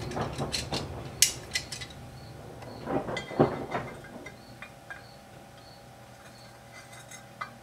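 Metal clicks and clinks of a Knipex pliers wrench being adjusted and clamped across an AR-15 upper receiver to press a roll pin in, the sharpest click about a second in and a cluster of clinks about three seconds in. A faint steady hum runs underneath.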